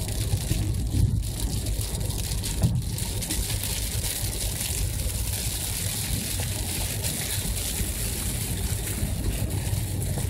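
Steady car-cabin noise while driving in rain: a low rumble of engine and road under the hiss of tyres on wet pavement and rain against the windshield.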